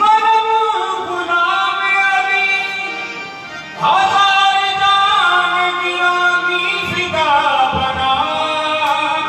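Qawwali: male voices singing long held, ornamented notes that slide between pitches, over two harmoniums. The voices come in strongly at the start and again about four seconds in.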